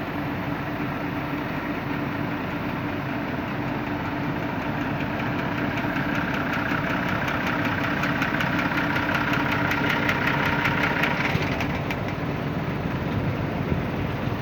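Excavator's diesel engine running steadily while its hydraulic breaker hammers with rapid, evenly spaced blows, growing louder and sharper through the middle and easing off a couple of seconds before the end.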